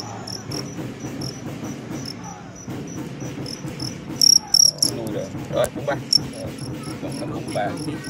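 Male fighting crickets stridulating: a steady run of short, high chirps, about four a second, with a louder burst of chirping a little past halfway as the two crickets face off, the aggressive song of a fight.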